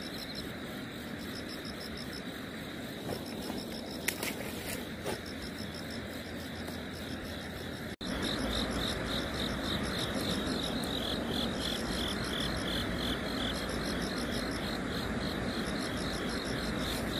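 Outdoor pondside ambience: a steady hiss with insects chirping in a fast, even rhythm. It gets louder about eight seconds in, and there are a few faint clicks around four to five seconds in.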